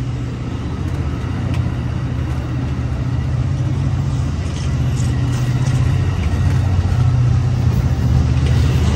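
Amtrak San Joaquin passenger train pulling out past the platform: bilevel coaches rolling by on the rails over a steady low diesel locomotive drone, which grows gradually louder as the train picks up.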